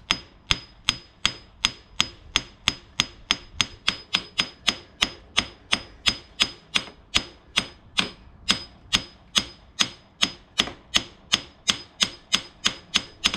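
Heavy claw hammer tapping steadily through a block of wood to drive a motorcycle rear wheel assembly into place. The sharp knocks come at an even beat of about three a second.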